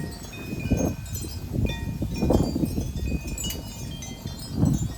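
Several metal tube wind chimes ringing in gusty wind, struck at irregular moments and sounding many held notes at different pitches, over wind buffeting the microphone.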